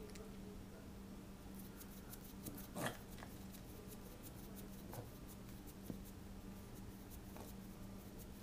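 A cat's troubled breathing: a run of faint clicks with a few short noisy breaths, the strongest about three seconds in, over a steady low hum. It is the breathing problem that comes on after she bends her head down, not hairball related.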